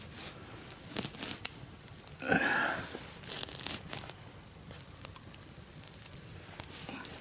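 Crinkling and rustling handling noises with scattered sharp crackles, and a brief louder rustle about two and a half seconds in.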